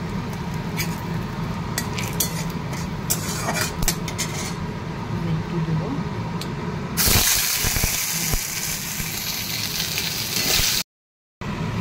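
Metal spatula scraping and tapping in a kadai of hot oil where bay leaf, dried red chilli and panch phoron are frying for a tadka. About seven seconds in, a loud sizzle starts and runs for about four seconds before cutting off abruptly.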